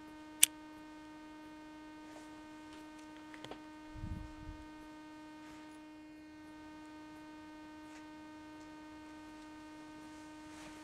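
Steady electrical hum with a faint whine of higher overtones in a quiet room. A single sharp click comes about half a second in, and a soft low thump about four seconds in.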